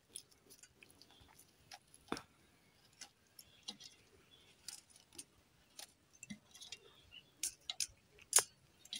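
Faint, scattered light clicks and ticks of sliced onion pieces being set by hand onto puffed rice in a steel bowl, with the bangles on the wrist clinking now and then.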